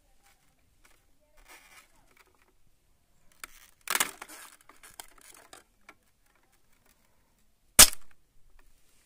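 Thin ice on a tub of water cracking as a finger presses on it and breaks it: a run of small crackles about four seconds in, then one sharp, loud crack near the end as the sheet shatters.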